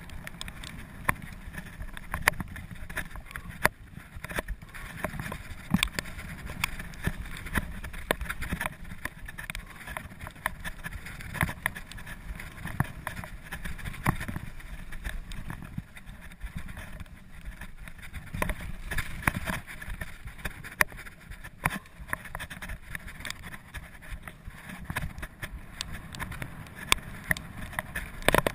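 Mountain bike running fast down a rough dirt trail: a steady rumble of tyres and wind on the microphone, with frequent sharp knocks and rattles as the bike goes over bumps.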